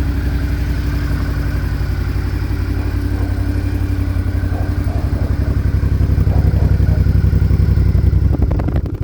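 Suzuki DL650 V-Strom's V-twin idling through an Akrapovic aftermarket exhaust, with a steady low pulsing note. It grows a little louder in the second half and drops back near the end.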